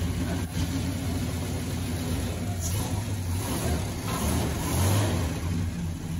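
Classic car's engine idling with a very low rumble, swelling briefly about five seconds in.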